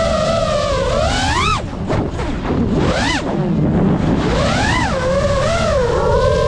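FPV quadcopter's brushless motors whining, the pitch rising and falling with the throttle. About one and a half seconds in, the whine climbs sharply and drops away. Several whines of different pitches then slide past each other before settling back into a wavering whine, over a rough rush of propeller wash.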